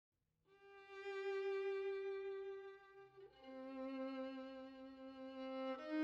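Background music of slow, sustained violin notes: one long held note after about half a second of silence, then two notes held together from about three seconds in.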